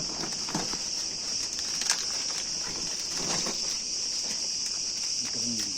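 A steady, high-pitched chorus of insects: a continuous shrill buzz with no breaks. A few faint short sounds lie under it, and there is one brief click about two seconds in.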